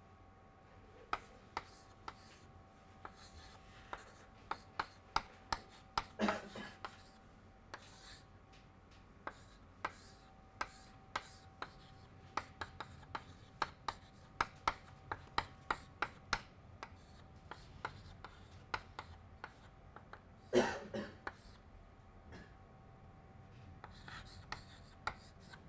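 Chalk writing on a blackboard: a long run of sharp taps and short scratches as symbols are written, with two longer, louder scrapes about six seconds in and again about twenty seconds in. A faint steady hum sits underneath.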